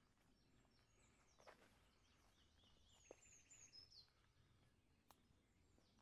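Faint common nightingale song: high descending whistled notes and a short rapid run of repeated notes, in phrases about a second or two long. A couple of faint clicks sound about a second and a half in and near the end.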